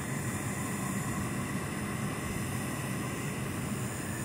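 Car engine idling, a steady low hum heard from inside the cabin, with a faint steady whine above it.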